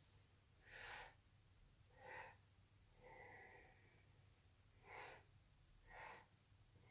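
Faint breathing of a woman doing a twisting crunch: two short, forceful exhalations about a second apart, a longer, softer inhalation, then two more short exhalations, following the double-exhalation breathing pattern of the exercise.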